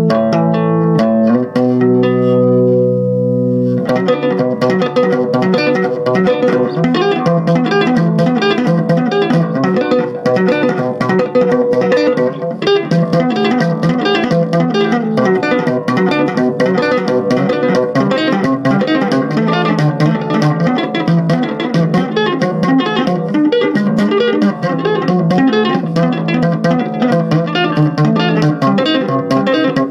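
ESP LTD B-206SM six-string electric bass played with two-handed tapping through a small 15-watt Crate amp, on the neck pickup with the highs all the way up. A few held notes ring first, then about four seconds in a fast, unbroken run of tapped notes begins.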